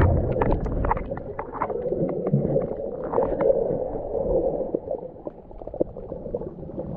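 Underwater sound picked up by a submerged camera: a muffled rush of water with many scattered clicks and crackles.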